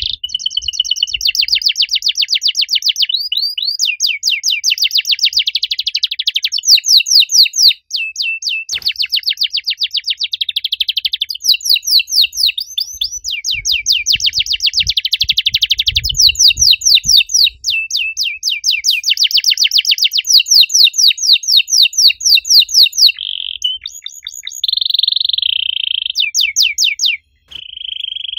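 White domestic canary singing a long, loud song of fast trills. Each run of rapidly repeated notes gives way to another every few seconds, with a few brief pauses.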